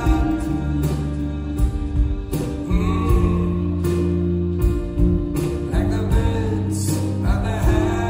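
Background music: a song with a singing voice over held chords, a stepping bass line and a steady beat.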